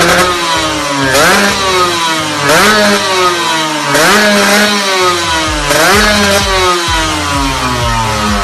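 Motorcycle fitted with an aftermarket racing exhaust, revved in four quick throttle blips. Each blip makes the pitch shoot up, and it then winds slowly back down toward idle.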